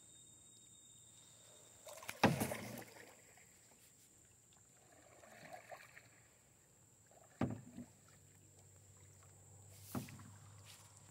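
Canoe paddling: a few separate paddle strokes and knocks against the water and hull, the loudest about two seconds in and sharper, shorter ones later, with quiet between.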